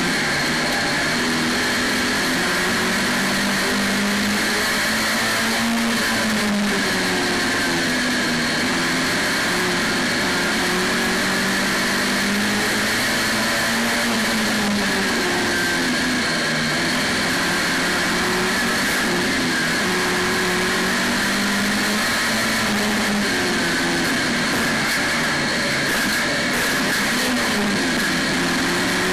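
Saloon stock car's engine heard from inside the cockpit during a race, its pitch rising and falling again and again as the car revs up and backs off around the track.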